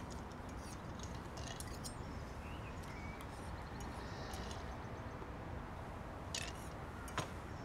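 Quiet café room tone: a steady low hum with faint, scattered small clicks, and two slightly sharper clicks about six and seven seconds in.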